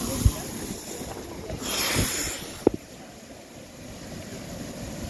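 Ocean swell surging through the Kiama Blowhole, with wind rumbling on the microphone. About two seconds in, a louder hissing rush of spray lasts about a second, and two sharp knocks stand out.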